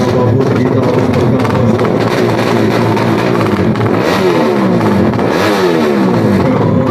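Four-stroke underbone (bebek) drag bike engine running at a fast idle at the start line, with two blips of the throttle a little past halfway, each rising and falling in pitch.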